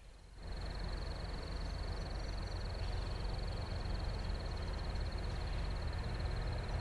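Low, steady rumble of an approaching CSX freight train's diesel locomotives, with a thin, high-pitched trill held steadily over it.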